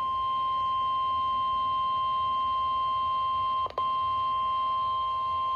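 NOAA Weather Radio's 1050 Hz warning alarm tone: one steady, unbroken beep, the signal that an urgent warning message follows. It drops out for a split second about two-thirds of the way through, then resumes.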